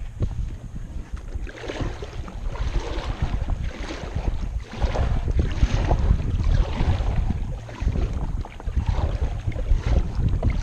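Wind buffeting the microphone in a heavy, uneven low rumble, with water lapping and splashing against a kayak in swells every second or two.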